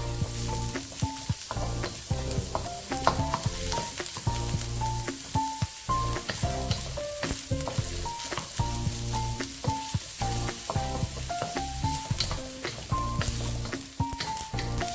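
Diced onions and garlic sizzling in hot oil in a carbon-steel wok, stirred with a wooden spatula that scrapes and taps against the metal. Background music with a melody and a repeating bass runs underneath.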